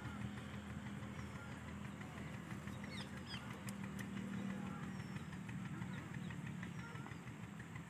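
A steady low engine hum runs throughout, with faint high bird chirps now and then.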